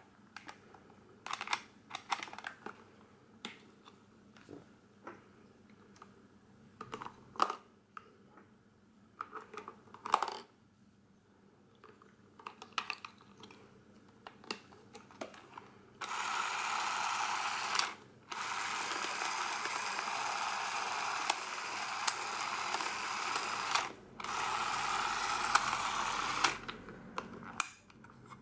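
Hands handling a Revue CX 325 Super 8 camera: scattered small clicks and taps of its plastic parts and a screw cap on the grip. From about halfway a steady rushing noise sets in and is louder than the handling; it cuts out briefly twice.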